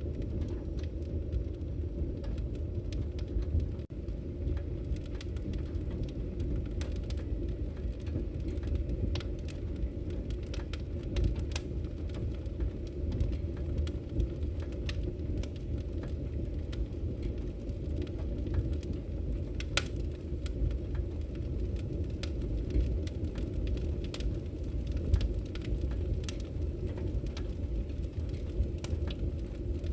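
Wood fire burning in a fireplace: a steady low rumble of flames with frequent small crackles and pops, a few louder snaps scattered through.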